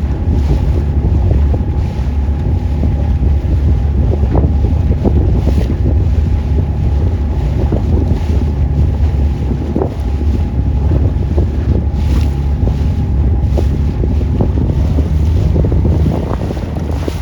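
Heavy wind buffeting the microphone on a moving boat, a loud, fluttering low rumble, with a thin steady whine from the boat's motor underneath that fades out a few seconds before the end.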